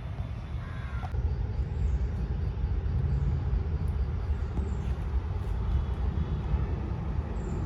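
Outdoor ambience carried by a steady low rumble, with a crow cawing briefly about a second in.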